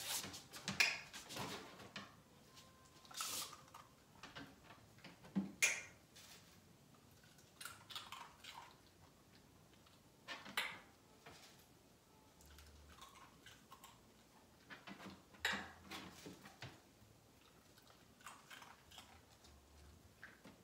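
Quiet scattered clicks, taps and small rustles, a second or a few seconds apart: the small handling sounds of a dog and its handler during chin-rest training on a plastic platform.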